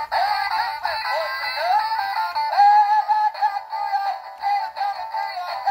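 Animated Rocking Santa figure, freshly repaired, playing its song with a singing voice through its small built-in speaker; the sound is thin, with no bass.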